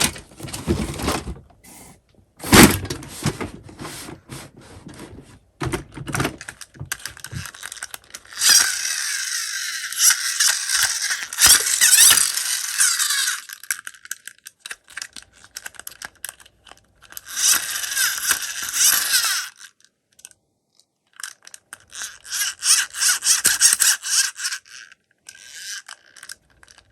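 Die-cast toy minicars clattering against each other as they are gathered into a box: scattered clicks and knocks, with a few longer spells of dense rattling.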